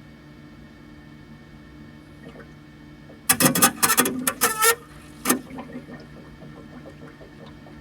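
Brakes making an abnormal noise: a loud, harsh cluster of squealing, groaning bursts a few seconds in, lasting about a second and a half, then one more short squeal, over a steady hum.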